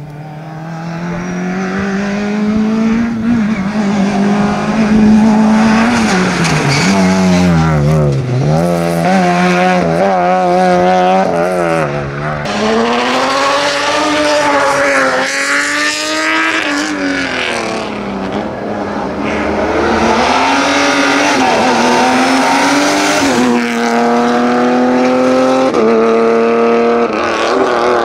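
Rally car engine at full racing pace, revs climbing and falling through rapid gear changes. The pitch drops sharply about eight seconds in as it slows and downshifts, then climbs again in steps through hard upshifts near the end.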